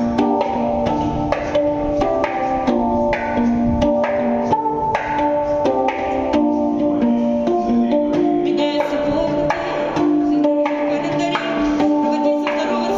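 A handpan (hang) played with the hands: steel notes struck in a steady rhythm, each ringing on into the next, in a melodic instrumental passage.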